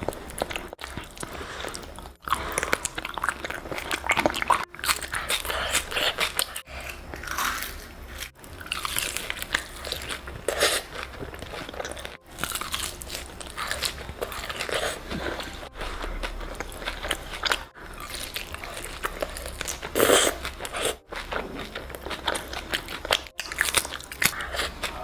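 Close-miked eating: crunchy bites and chewing of food, in short stretches of a couple of seconds each, with brief abrupt breaks between them.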